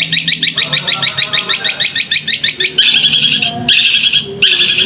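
Long-tailed shrike (cendet) singing: a fast run of sharp repeated notes, about seven a second, then, a little past halfway, three longer, steadier notes.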